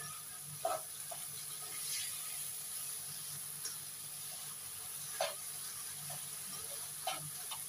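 Minced pork and tomato sizzling steadily in a non-stick wok, with a few short scrapes of the spatula as the mixture is stirred, the loudest about two-thirds of a second and about five seconds in.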